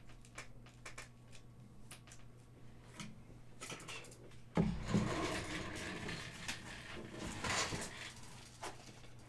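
Trading cards and plastic card holders handled on a table: scattered light clicks, then about halfway in a thump and a louder stretch of rustling and knocking, over a steady low hum.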